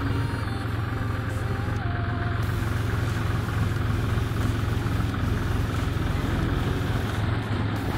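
Claas Crop Tiger 40 tracked combine harvester driving slowly, its engine running with a steady, deep drone.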